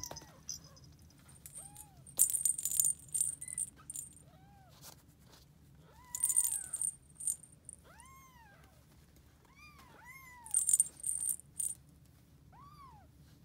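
Young Scottish Fold kittens mewing repeatedly: short, high cries that each rise and fall in pitch. Three louder bursts of rattling noise come about two, six and ten and a half seconds in.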